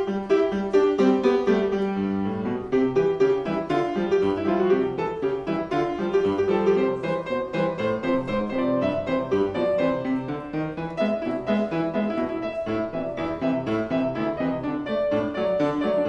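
Yamaha grand piano played solo: a lively stream of quick, short notes over lower repeated notes, with one higher note sustaining for several seconds past the middle.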